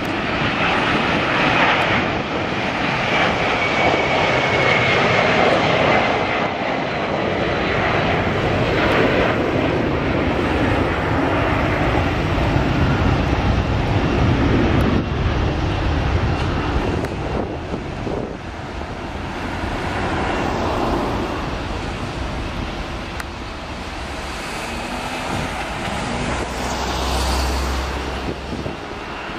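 McDonnell Douglas MD-11 freighter's three jet engines at takeoff power: a steady, loud roar with a faint falling whine a few seconds in, easing off somewhat in the second half.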